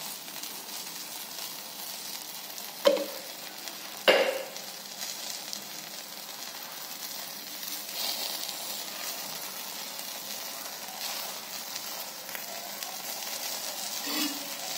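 Ghee sizzling on a hot tawa as it is spooned onto a vegetable paratha and spread with a metal spatula, with two sharp metal clinks about three and four seconds in.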